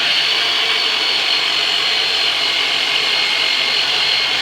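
Turbonator electric massager running steadily on the patient's back: a loud, even motor whine with steady high tones that does not change.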